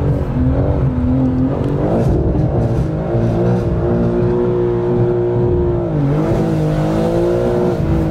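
BMW M4 G82's twin-turbo straight-six heard from inside the cabin under hard driving. The revs waver up and down, hold high and steady, then drop sharply about six seconds in and climb again.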